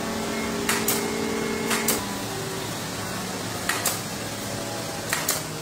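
Meite pneumatic stapler firing staples through the edge of a retread tread strip on a truck tyre casing: four pairs of sharp clicks, the two in each pair about a fifth of a second apart. Under them runs a steady workshop machine hum.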